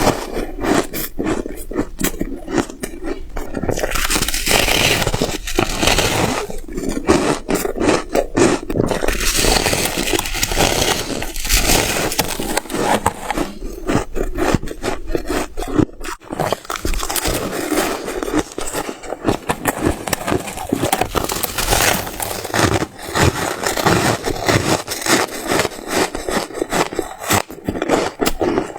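Close-up crunching and scraping of white freezer ice and frost, a dense, continuous run of rapid crackles and scrapes with short dips.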